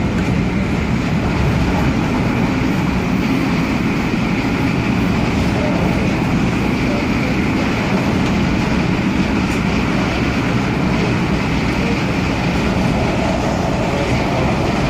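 MTR A-train (Adtranz-CAF electric multiple unit) running at speed between stations: a steady rumble of wheels on rail with a hiss above it.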